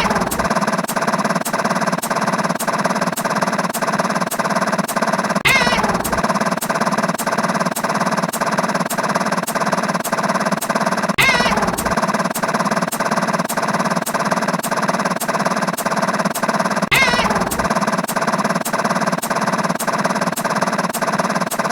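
Looping sound effects: a steady buzzing drone with rapid, regular clicks, and a falling whistle with a low thud that comes round about every six seconds, three times.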